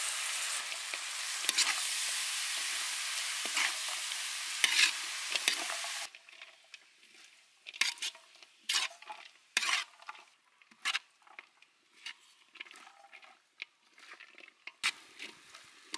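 Shredded cabbage and carrot sizzling in hot oil in a metal wok, with a few clinks. About six seconds in the sizzle cuts off sharply. A metal spatula then scrapes and taps against the wok in irregular strokes as the vegetables are stir-fried.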